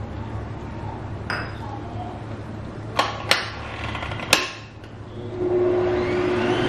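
A few sharp metal clinks against a stainless steel stand-mixer bowl. About five seconds in, the stand mixer's motor starts and speeds up with a rising whine as its wire whisk beats egg whites and sugar toward soft peaks.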